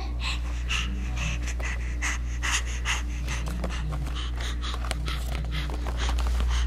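Baby panting close to the microphone, short quick breaths about three a second, over a steady low hum.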